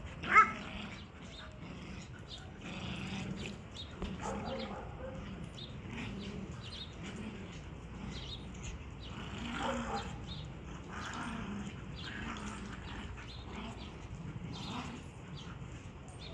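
Dogs playing with a toy: low play growling goes on and off throughout, with one sharp bark about half a second in.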